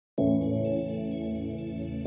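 Ambient background music: a held chord that starts just after the beginning and slowly fades.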